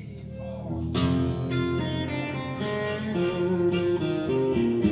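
Instrumental intro of a country-rock song: guitar playing, entering strongly about a second in.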